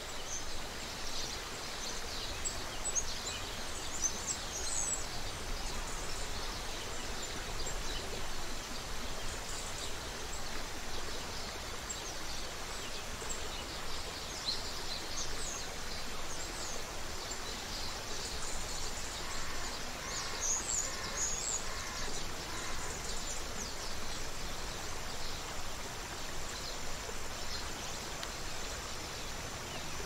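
Creek water running steadily, with small birds chirping and singing at intervals. About twenty seconds in, a short run of evenly repeated lower bird notes joins in.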